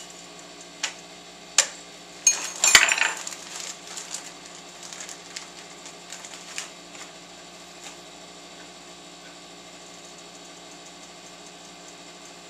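Kitchen handling sounds while tortillas are filled and rolled: two light clicks, then a short clatter with a dull knock about two to three seconds in, followed by scattered softer taps and rustles from a frying pan, wooden cutting board and plastic bag of seasoned beef. A faint steady hum lies underneath.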